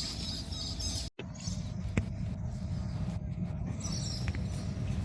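Outdoor ambience dominated by wind rumbling on the microphone, with faint high chirps near the end and a short dropout about a second in.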